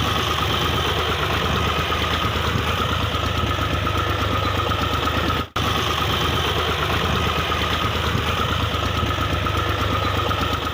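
Tractor diesel engine running steadily under load, with a constant low hum. The sound cuts out for an instant about halfway through.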